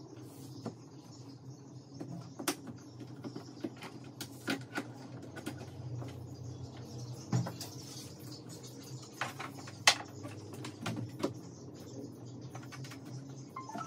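Irregular clicks and knocks as cables are plugged in and a laptop stand is handled on a desk, the sharpest about ten seconds in, over a steady low hum.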